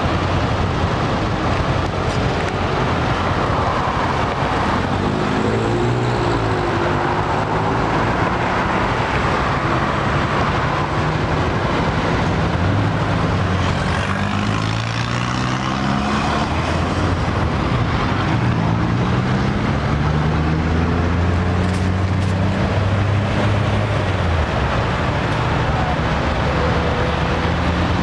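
Road traffic around a cyclist: nearby motorbike and car engines idling and pulling away, their pitch rising several times over a steady rush of traffic noise.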